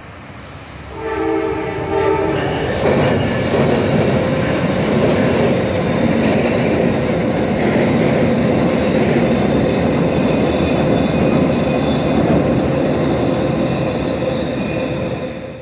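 A passenger train sounds its horn once, briefly, about a second in, then crosses a steel truss bridge overhead with a loud, steady rumble and clatter of wheels on the rails and bridge deck, fading near the end.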